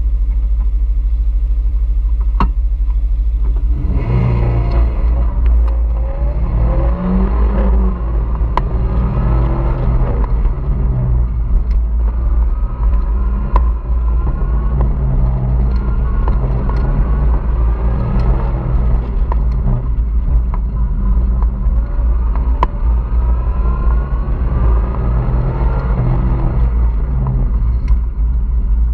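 Open-top car's engine driven hard through an autocross course. It picks up about four seconds in, then its pitch repeatedly rises and falls with acceleration, braking and gear changes. A heavy low rumble of wind buffeting the open cockpit sits under it, with a few sharp clicks.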